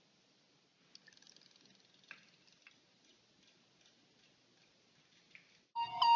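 Near silence with a few faint, scattered ticks. Near the end a loud tune of stepped electronic tones starts.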